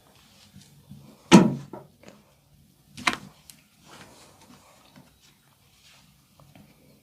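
Hands-on massage with two loud sharp cracks, one about a second in and one about three seconds in, and faint taps and rubbing around them.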